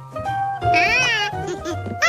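A cartoon monkey's high, wordless vocal call, rising and falling once, over light background music.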